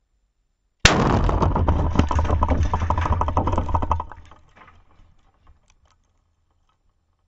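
Fireworks exploding: a sudden loud bang about a second in, then about three seconds of rapid crackling bangs that die away over the next two seconds.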